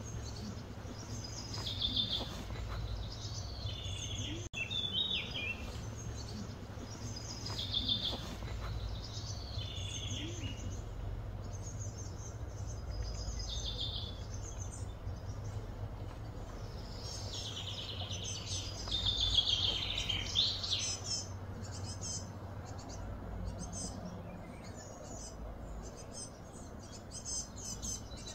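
Birds singing: short chirping phrases that fall in pitch, repeated every second or two, with a longer, denser burst of song about two-thirds of the way through, over a steady low outdoor rumble.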